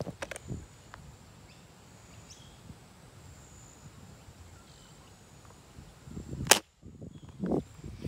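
A single sharp shot from a toy blaster about six and a half seconds in, with a few light handling knocks of the gun near the start.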